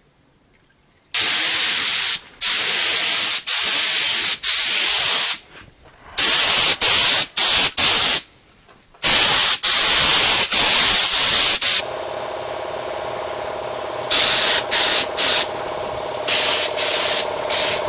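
Air spray gun spraying the first coat of activated paint onto an engine block, in hissing bursts of a second or two with short pauses between trigger pulls. About twelve seconds in, a steady machine hum starts and runs under the spraying.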